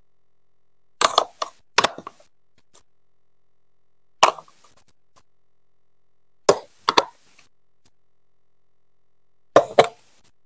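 Plastic Lego Duplo bricks clacking as they are set down and pressed onto a studded baseplate, in about five short clusters of sharp clicks with silence between.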